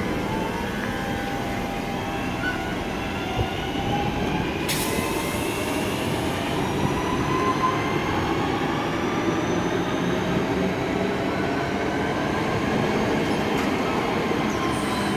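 Passenger train running through the station, its wheels rumbling on the rails under several whining tones that slowly shift in pitch. A single sharp click comes about five seconds in.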